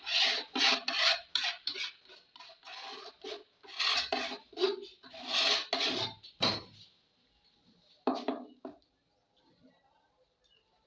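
A thin metal transformer lamination strip scraping in quick repeated strokes as it smooths glued paper onto a speaker box. The strokes run for about six or seven seconds, then come twice more and stop.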